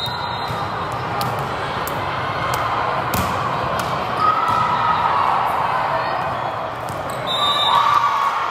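Volleyball being hit during a rally in a gymnasium: sharp smacks of ball contact, the loudest about three seconds in, over the echoing hall. Players and spectators shout, and a referee's whistle sounds near the end as the ball hits the floor.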